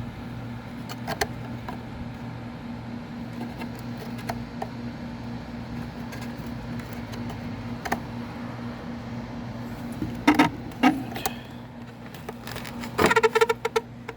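A steady low hum, with a couple of sharp clicks about ten seconds in and a short rattling clatter near the end.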